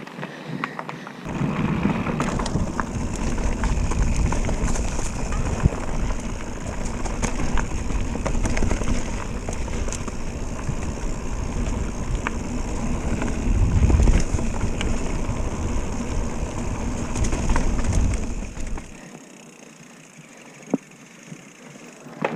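Wind buffeting the microphone while a mountain bike rides fast over a dirt trail, with the tyres rumbling and the bike rattling; the steady rush drops away about nineteen seconds in.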